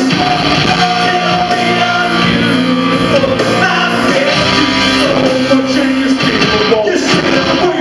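Live rock band playing with singing, loud, in a large hall.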